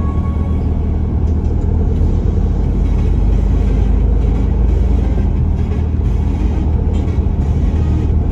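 Car driving at a steady speed, heard from inside the cabin: a continuous low rumble of engine and road noise.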